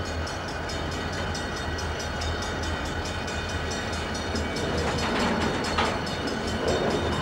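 Santa Fe intermodal freight train rolling alongside with a steady rumble and faint rhythmic ticking. A few louder knocks and creaks come a little past halfway.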